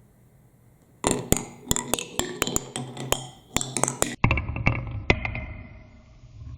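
Marbles clicking and clattering down a block marble run, starting about a second in with a rapid run of sharp clicks; from about four seconds in they roll with a low rumble under scattered clicks.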